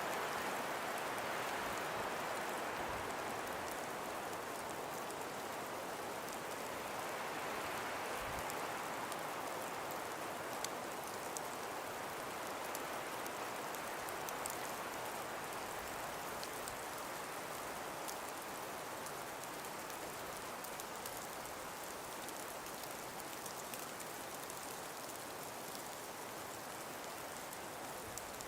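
Calm breeze blowing through a frost- and ice-covered forest: a steady rushing that swells at the start and again about eight seconds in, then slowly eases, with faint scattered ticks.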